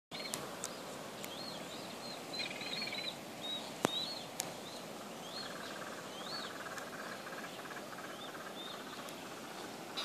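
Several birds calling, with short, repeated, high chirps throughout and a fast trill through the middle, over a steady rushing background. A few sharp clicks, the loudest about four seconds in.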